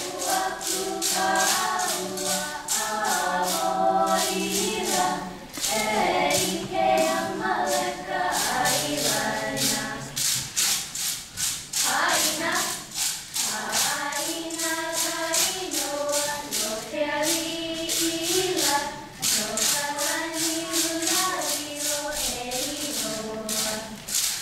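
A Hawaiian song sung by a group of voices, with a steady clicking of hula sticks struck in rhythm, about four clicks a second.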